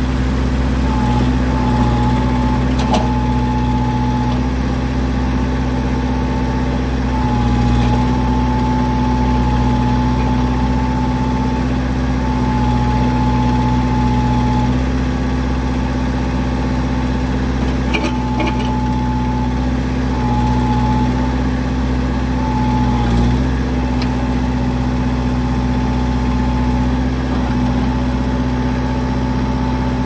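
Kubota L45 backhoe's diesel engine running steadily while the backhoe arm is worked. A hydraulic whine comes and goes in stretches of a second or two as the controls are moved, and the engine note shifts slightly with the load, with a few faint clicks.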